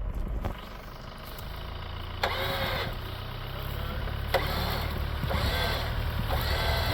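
Off-road vehicle engine running at low speed, growing louder from about a second in, with two sharp knocks about two seconds apart.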